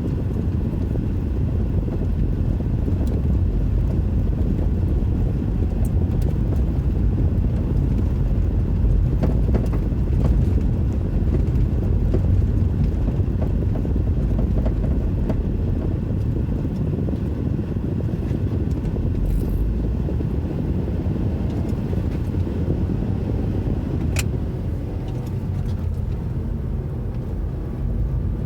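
2006 Mazda 3 hatchback driving over uneven ground: a steady low rumble of road noise with occasional clunks from the passenger-side rear suspension, a knock that persists even with new shock absorbers fitted.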